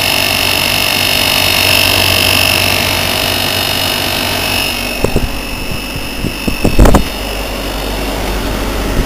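Braemar half-ton window air conditioner running, its fan and compressor making a steady, a little bit noisy hum with a high whine over it. About five seconds in the sound shifts and a few knocks follow, the loudest near the seven-second mark.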